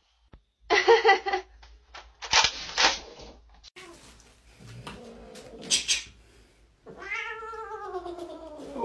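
Cat meowing: two short, harsh calls, then near the end one long drawn-out meow that falls in pitch.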